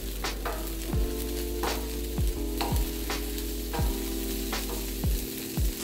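Green onions sizzling in leftover beef juices on a hot Blackstone steel griddle, a steady frying hiss. Background music with a regular low beat plays over it.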